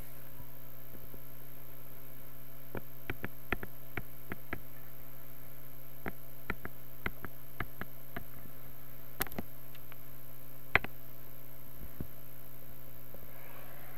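Steady electrical mains hum with scattered sharp computer-mouse clicks, which come in small clusters. The loudest click comes near the end.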